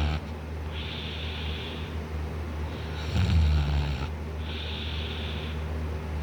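A man snoring loudly in deep sleep, on his back with his mouth open: one rough, low snore about three seconds in, with breathy hisses of air before and after it.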